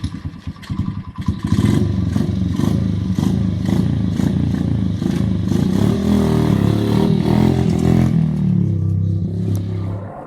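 Motorcycle engine running loud and revving, with the pitch rising and falling, then dying away near the end.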